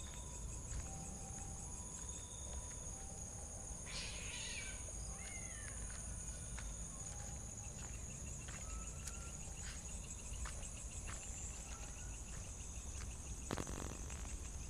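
Steady, high-pitched chirring of night insects, with a few short faint calls scattered through it and a brief rustle or scuff near the end.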